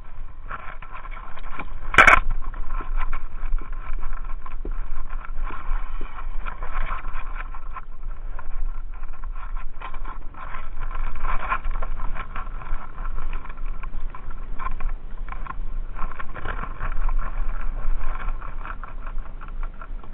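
Choppy lake water lapping and slapping against a fishing kayak's hull, an irregular crackling rush, with one sharp knock about two seconds in.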